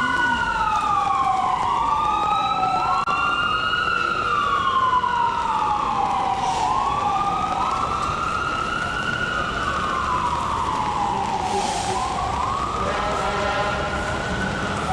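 Emergency vehicle sirens wailing, two of them slightly out of step, each rising and falling slowly in pitch, over the steady hiss of heavy rain. Near the end a steady held tone joins them.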